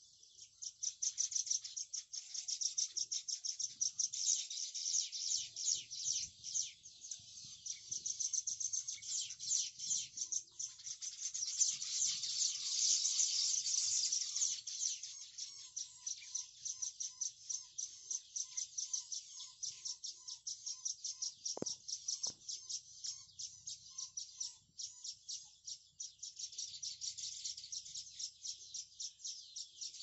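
Baya weaver colony chattering: a dense, continuous wash of rapid, high chirps from many birds at once. In the middle a lower run of short notes, about two a second, sounds under the chatter.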